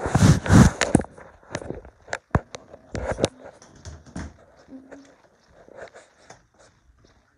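Handling noise on a phone's microphone: a loud rubbing rush in the first second, then scattered knocks and clicks as the phone is moved about.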